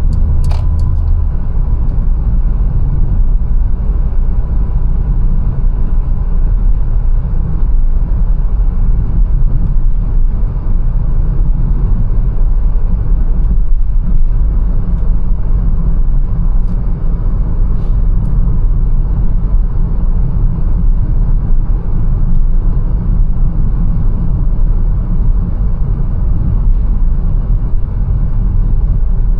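Mercedes-Benz A180 driving at steady speed: a continuous low rumble of engine and road noise. A single sharp click sounds about half a second in.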